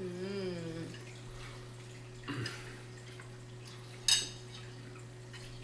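A short hummed "mmm" while eating, then a soft knock, and about four seconds in a sharp, ringing clink of a plate set down on a table.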